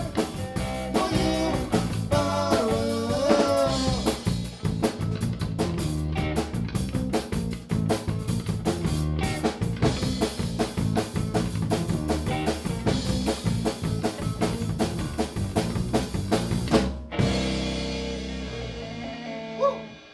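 Rock trio of drum kit, bass and guitar playing the last bars of a song. It ends on one final hit about three seconds before the end, and the last chord rings out and fades away.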